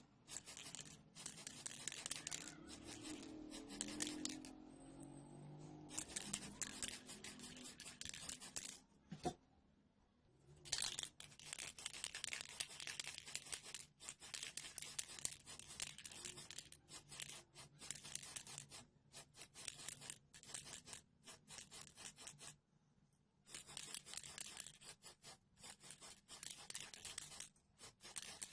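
Rapid, repeated scraping and rubbing strokes on a small hard part, coming in runs with short breaks and a longer pause about nine seconds in.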